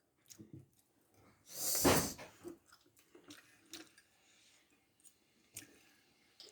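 Someone eating spicy noodles: soft chewing and small mouth clicks, with one loud rush of air through the mouth lasting under a second about two seconds in.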